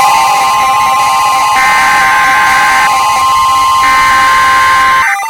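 Emergency Alert System attention signal: a loud, steady two-tone alert tone that cuts off abruptly about five seconds in, with higher tones switching on and off above it.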